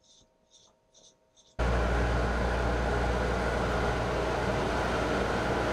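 A pet-grooming blow dryer and the drying cage's built-in vacuum switch on suddenly about a second and a half in and run with a steady rush and low hum. A few faint ticks come before it.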